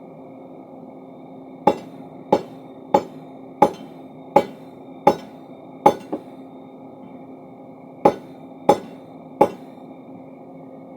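Hammer blows on steel while a crowbar is forged: seven evenly spaced strikes, a pause of about two seconds, then three more, over a steady machine hum.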